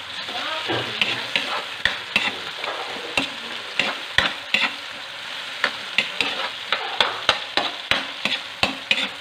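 Chopped tomatoes sizzling in oil in a metal wok while a metal ladle stirs them, clinking and scraping against the pan about two to three times a second over a steady hiss.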